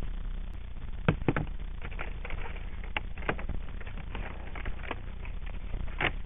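Power strips and electrical cables clicking and rattling as they are handled in a plastic crate, with a few sharp clicks about a second in, around three seconds and near the end, over a steady low rumble on the microphone.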